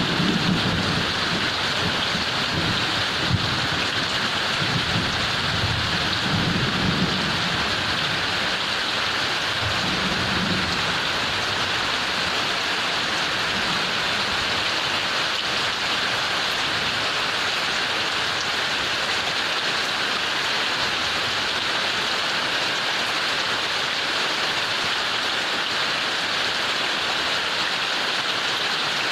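Heavy rain falling steadily, with a low rumble of thunder through the first ten seconds or so that dies away, leaving only the rain.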